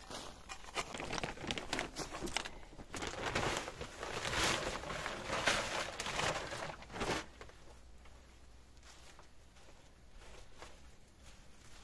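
Dry, loose soil being scooped with a small spade and tipped out, a run of scraping and rustling noises. After about seven seconds it drops to faint scrapes of a gloved hand spreading the soil.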